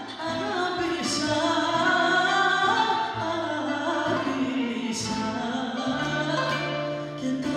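A woman singing a Greek laïko song live through a microphone, with bouzouki and guitar accompaniment; her held, sliding notes carry the melody.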